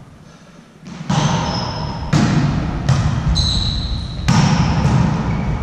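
A volleyball being struck during a rally in a gym hall, about five sharp hits, each with an echoing tail, along with short high squeaks of sports shoes on the hall floor.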